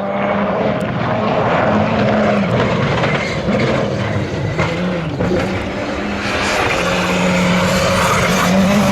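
Rally car engine at high revs on a gravel special stage, the revs climbing and dropping with gear changes and the sound growing louder toward the end as the car approaches.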